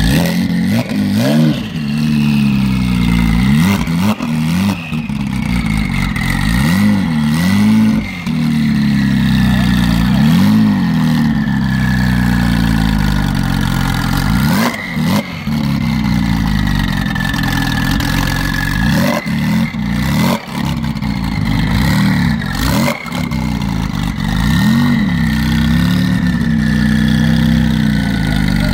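9ff-tuned Porsche 997 Turbo's twin-turbo flat-six being revved over and over, each blip rising and falling back, with a few sharp cracks between revs.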